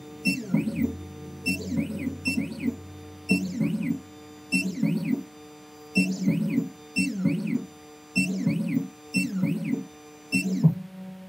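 Triton key machine's decoder motors whirring in short, repeated bursts, each rising and then falling in pitch, as the probe steps along the cuts of a car key to read them. Background guitar music plays underneath.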